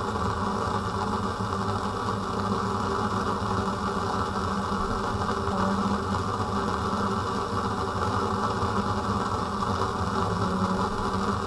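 Steady roar of a Bunsen burner's blue flame with the air hole open, mixed with the fume cupboard's extraction running.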